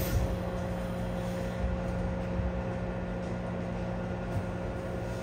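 Interior running sound of a Seoul Subway Line 6 electric train with Mitsubishi IGBT-VVVF drive: a steady rumble of wheels on rail under an even hum that holds one pitch throughout.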